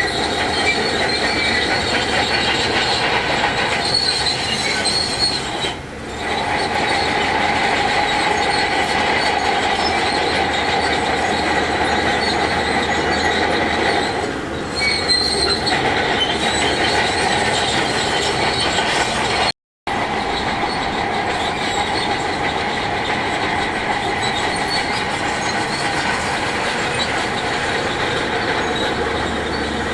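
Heavy earthmoving machinery working: a diesel engine running steadily under a sustained high metallic whine. The sound dips briefly twice and cuts out for a split second about two-thirds of the way through.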